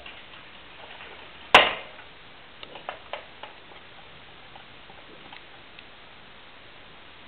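Plastic exercise ball with a chipmunk inside knocking into something: one loud, sharp knock about one and a half seconds in, followed by several lighter clicks and taps as it rolls on.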